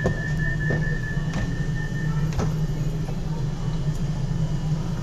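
Passenger train running at the platform as it pulls away: a steady low hum, with a steady high tone that stops about two seconds in and a few faint clicks.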